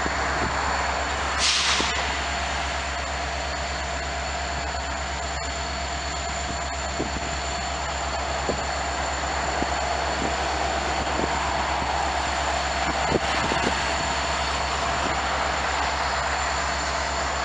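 Metra commuter train on the rails, running steadily with scattered clicks and knocks from the wheels, and a brief sharp hiss about a second and a half in.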